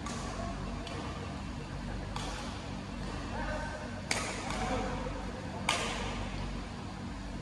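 Badminton rackets striking a shuttlecock in a rally: several sharp smacks a second or two apart, the two loudest about four and five and a half seconds in, over a steady low hum.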